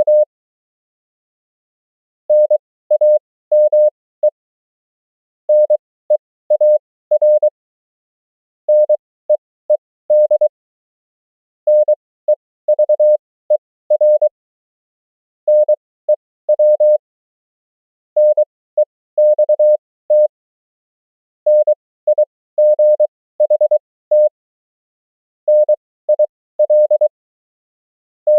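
Morse code (CW) sent as a single keyed tone at 20 words per minute, with characters at 23 wpm and extra spacing between them (Farnsworth timing). About eight short words or abbreviations go by, each a quick cluster of dots and dashes, with a pause of roughly a second between words.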